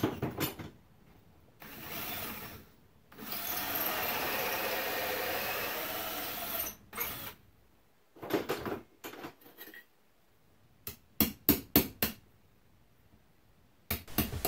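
Power drill running a hole saw into a lightweight fire-rated block: a short burst, then a steady cut of about three and a half seconds. It is followed by scraping and a quick run of sharp taps as the loosened material is chiselled out with a center punch and knife.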